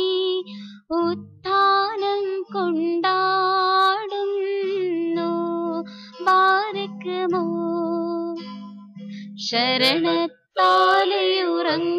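A solo voice sings a Malayalam Syro-Malankara Easter hymn in phrases with short pauses, over a plucked guitar accompaniment.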